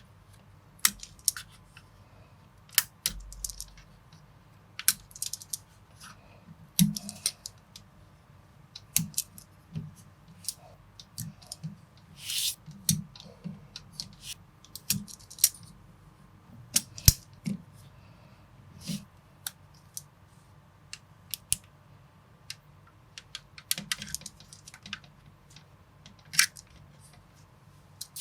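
Plastic building bricks being handled and pressed together: irregular sharp clicks and snaps, with a longer scrape or rattle about twelve seconds in.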